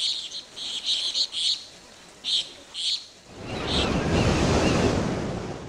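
Logo intro sound effects: a run of short high chirps for about three seconds, then a loud rushing whoosh that swells in and fades away near the end.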